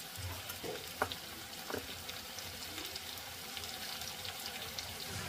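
Gooseberry (amla) pieces frying gently in mustard oil in a pan: a quiet, steady sizzle with a few small crackles.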